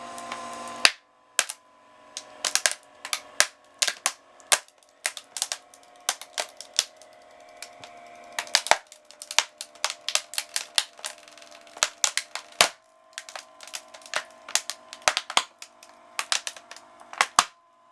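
Plastic casing and keys of a Sharp adding machine cracking and snapping under a crushing press, dozens of sharp cracks at irregular intervals, in quick clusters, with a steady hum underneath.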